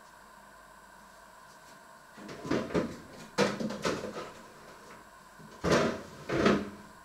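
Refrigerator door opened and things inside handled: a run of knocks and rattles from about two seconds in, then two louder knocks near the end.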